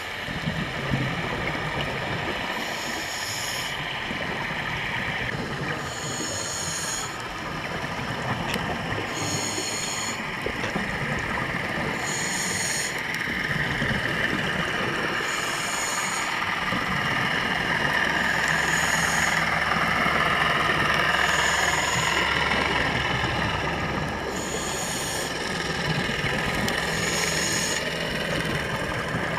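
Underwater sound of a scuba diver breathing through a regulator: a hiss recurring about every three seconds over a steady wash of water noise. A low steady hum comes in about two-thirds of the way through.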